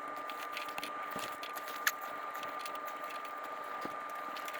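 Small irregular clicks and taps of parts being handled as the carburetor's fuel lines and throttle cable are unhooked, with one sharper click about two seconds in, over a steady thin high-pitched whine and hiss.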